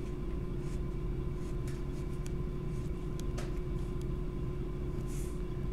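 A steady low hum with a thin constant tone in it, and a few faint short scratches of a pencil on sketch paper.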